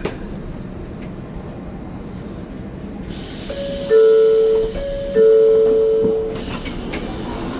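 Two-note tone sounded twice, each a steady held chord about a second long, about halfway through, over the low rumble of a railway station.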